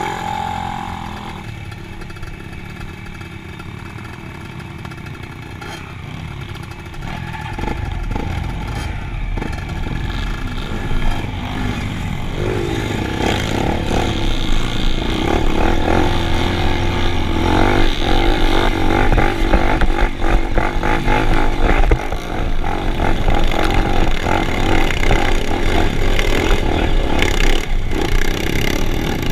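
Vehicle engines running and revving, getting louder about a quarter of the way in and staying loud.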